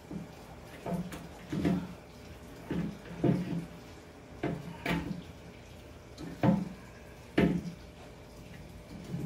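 Plastic trigger bar clamp knocking and clicking against an aquarium's glass and frame as it is moved into place and tightened: about eight short knocks at uneven intervals.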